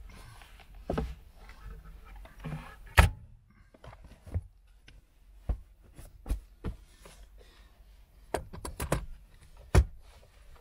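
Scattered knocks and clacks of a tabletop being handled and fitted onto a Lagun swivel table mount, with a louder knock about three seconds in and another near the end.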